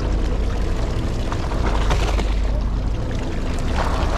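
Fishing boat at sea: its engine running with a steady low rumble, and water sloshing against the hull.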